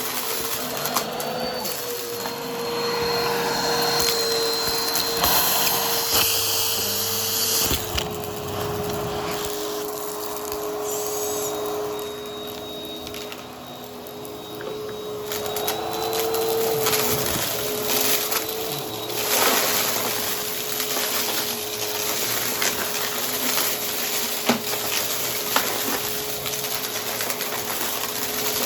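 Vacuum cleaner running with its brushroll on: a steady motor hum over a constant rush of airflow, with a few sharp clicks as debris is picked up.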